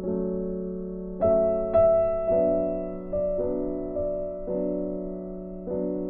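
Background music: a slow, gentle piano melody, single notes struck about once a second and left to fade over sustained chords.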